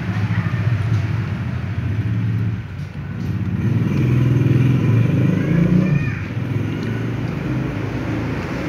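A motor vehicle engine running, a steady low hum that grows louder for a couple of seconds in the middle and then eases back.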